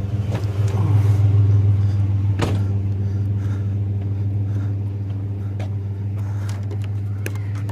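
A truck engine idling steadily with a low hum, with a few sharp clicks and knocks over it.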